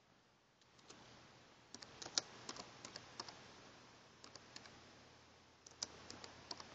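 Faint keystrokes on a computer keyboard, typed in short bursts with pauses between.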